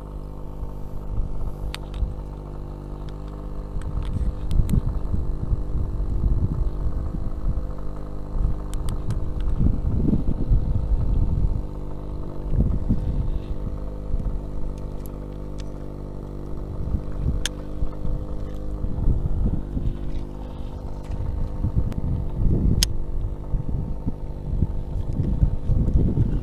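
An engine on the boat running steadily at an even speed, with wind gusting on the microphone and a few sharp clicks.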